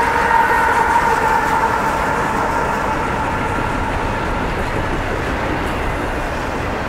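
CSX double-stack intermodal train rolling past, its well cars running steadily over the rails. A tone from the passing locomotives fades out over the first two seconds.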